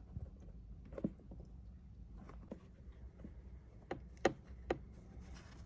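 Faint scattered light taps and scratches, about half a dozen, the loudest around four seconds in, as a pet Senegal bushbaby moves about and rubs against the wood and cable grommet inside a cabinet, over a low steady hum.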